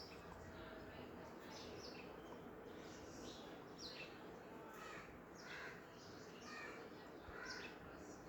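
Baby green parrots chirping faintly: a steady run of short, high chirps, many of them sliding down in pitch.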